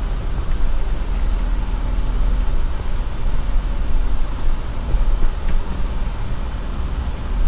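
Off-road 4x4 crawling down a rocky dirt trail: a steady low engine-and-drivetrain rumble, with tyres crunching over gravel and stones and an occasional faint click of a rock.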